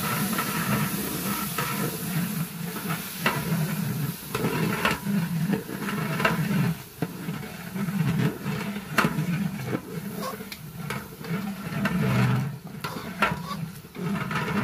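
Long-handled ladle stirring khichuri in a large aluminium pot, scraping and clinking irregularly against the pot's sides and bottom, over a faint sizzle of the food cooking.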